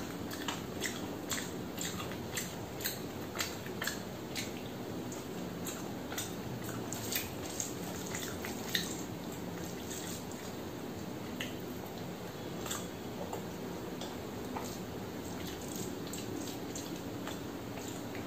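Wet, sticky clicks and squelches of fingers mixing very soft, mushy cooked rice with dal and curry on a steel plate, a quick run of small clicks at first that thins out after about nine seconds.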